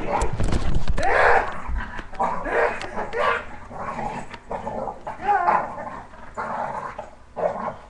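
English bulldog growling and barking in rough play, a string of short throaty vocal bursts coming every second or so. Low handling thuds in the first two seconds.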